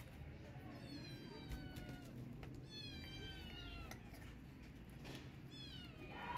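A kitten mewing: about three high, thin calls, each sliding down in pitch, the cries of a hungry kitten.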